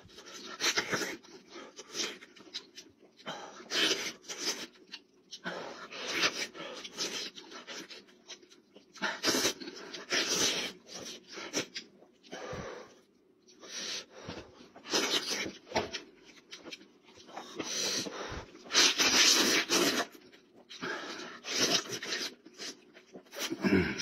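Close-up eating sounds of a man chewing boiled mutton: wet chewing, lip-smacking and sucking in irregular bursts with short pauses between.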